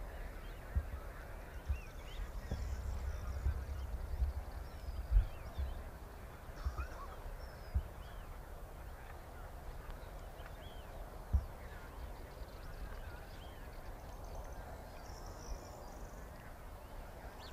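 Ibizan hounds giving short yelps in the distance as they hunt through the brush, with low wind rumble and a few thumps on the microphone.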